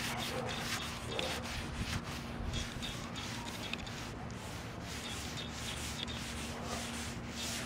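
Sandpaper worked by hand over a rusty steel car roof, brisk back-and-forth rasping strokes at about two to three a second, taking the rust down to bare metal.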